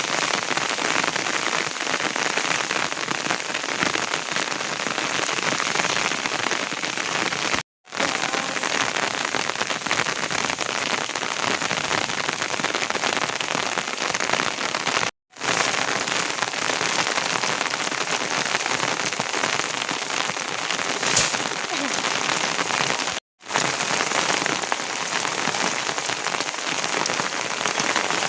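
Steady rain falling: a dense, even hiss of drops. It cuts out to silence for an instant three times, about every eight seconds.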